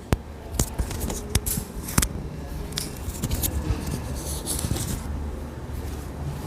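Rustling and shuffling of people moving about and repositioning, with a few scattered sharp clicks over a low steady room hum.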